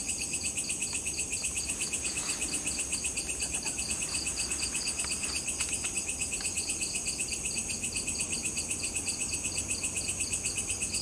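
Insect chorus: a steady high chirping in rapid, even pulses.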